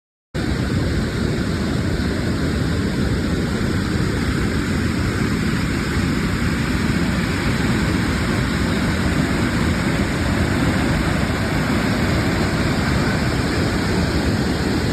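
Steady rushing wind noise buffeting the microphone, heaviest in the low range, starting just after a cut and running unbroken.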